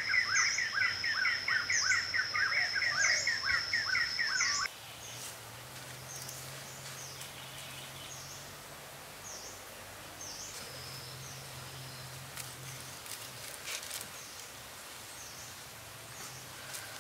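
Birds chirping in outdoor ambience. For about the first four and a half seconds a loud, dense stream of rapid chirps runs over a steady high-pitched tone, then cuts off suddenly. Fainter, scattered chirps follow over a low steady hum.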